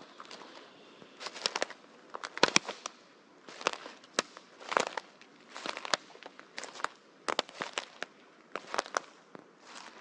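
Footsteps on dry fallen leaves and twigs in a forest, each step a crackling crunch with small snaps of breaking branches, about one step a second.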